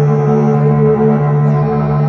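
Dense ambient drone music: many sustained tones layered and held steady, with a thin high tone that shifts up about half a second in and drops back about a second later.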